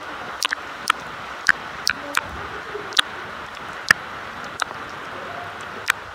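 Rain falling: a steady hiss with sharp, irregular taps of drops striking close to the microphone, about one or two a second.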